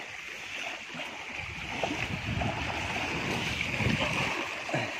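Small waves washing steadily on the shore, with a low irregular rumble that grows louder from about a second and a half in.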